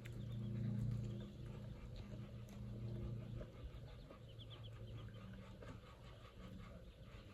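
Muscovy ducklings peeping in short high chirps, with a quick run of peeps about four and a half seconds in, over a steady low hum.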